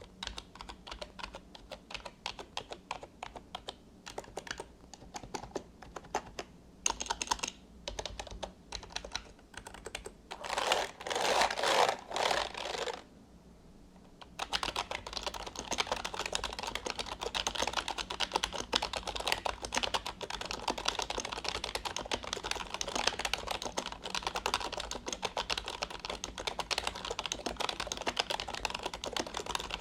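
Fujitsu KB-3920F rubber-dome membrane keyboard being typed on. Separate keystrokes come first, then a few louder dense flurries about eleven to thirteen seconds in, a short pause, and steady fast typing after that.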